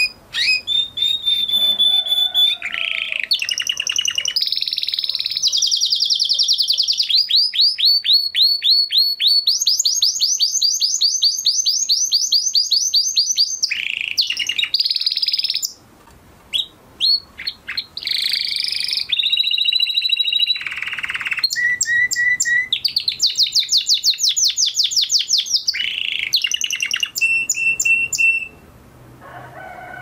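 Male canary, singing again after its moult, giving a long song of fast, high-pitched trills and rolls of rapidly repeated notes. It breaks off briefly about halfway, then resumes and stops shortly before the end.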